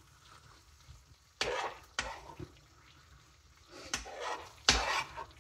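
A utensil scraping and knocking against a metal pan while stirring and turning saucy fries and melting cheese: about five separate scrapes and knocks, the loudest near the end.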